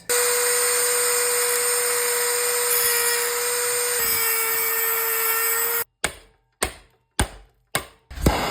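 Black & Decker RTX rotary tool running steadily at high speed with a high-pitched whine. After about six seconds it breaks into four brief bursts separated by silence, then a steady hiss begins near the end.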